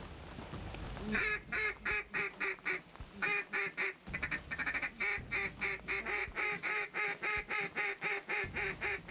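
Hunters' duck calls blown in a quick, even run of short quacks, about five a second, starting about a second in, as ducks circle overhead.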